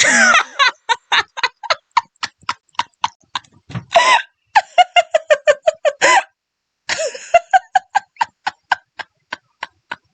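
Rapid, even ticking, about five ticks a second, broken by short voice-like sounds near the start and about four, six and seven seconds in.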